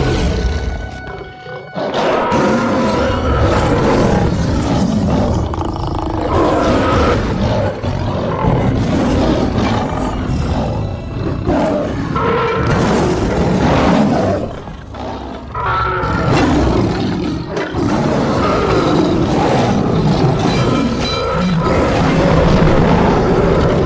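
Sabre-toothed cat creature sound effects: a series of loud roars and snarls over music, with brief lulls between some of them.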